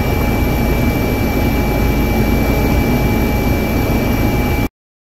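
Helicopter turbine and rotor noise heard from inside the cabin: a loud, steady rumble with a thin high whine, cutting off suddenly near the end.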